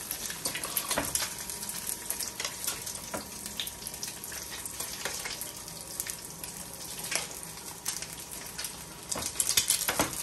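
Eggs frying in hot oil in a small skillet: a steady sizzle with scattered crackles and pops, as a metal spoon bastes the eggs with the oil. There is a run of louder clicks and crackles near the end.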